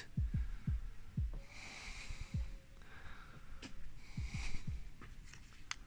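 A person breathing close to the microphone, with two breaths about two and four and a half seconds in, and soft low thumps from walking steps.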